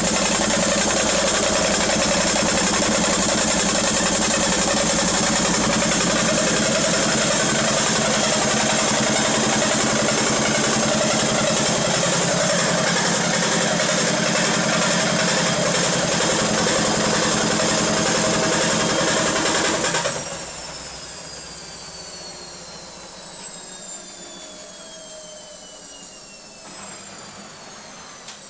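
Indesit IWC6105 washing machine spinning with a loud, harsh racket from a drum whose bearings have failed. About twenty seconds in the noise drops sharply and falling whines follow as the drum spins down.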